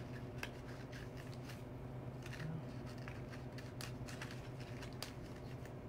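Light rustling and small clicks of flower stems and foliage being handled and worked into a floral arrangement, over a steady low hum.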